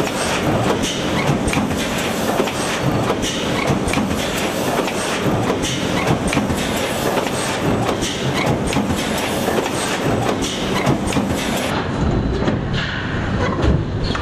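OMV F87 cup thermoforming machine running: a loud, steady, dense mechanical clatter full of quick clicks and knocks.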